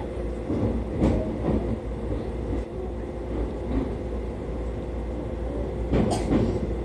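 Two-car train running, heard from inside the car: a steady low rumble with a constant hum, and louder rattling knocks about a second in and again near the end.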